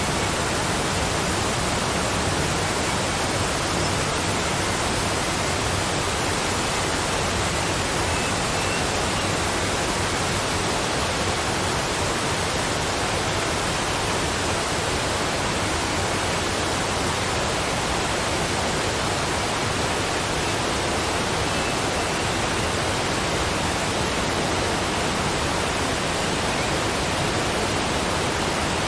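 Waterfall: water falling and rushing in a steady, unchanging roar of noise.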